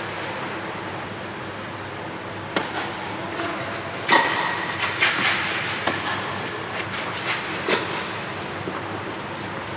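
Tennis ball struck by rackets and bouncing on a clay court during a rally: a string of sharp knocks a second or so apart, the loudest about four seconds in with a brief ring.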